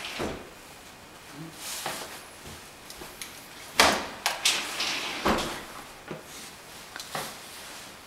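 A hand truck carrying a top-loading washing machine being lowered down a staircase one step at a time: a series of separate knocks and clunks as it drops from step to step, the loudest a little under four seconds in.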